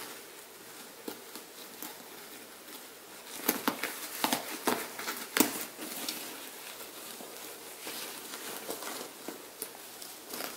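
Webbing straps and buckles on a picnic backpack being worked loose by hand: rustling fabric with scattered sharp clicks, busiest from about three and a half to five and a half seconds in.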